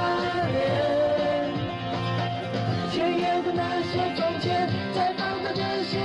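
Karaoke music: a Mandarin pop ballad backing track with a voice singing the melody along with it.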